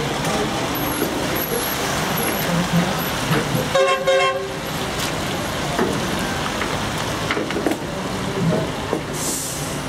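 Cars moving slowly across a wet car park, with a steady background of engine and tyre noise. About four seconds in, a car horn sounds once, a short blast of under a second.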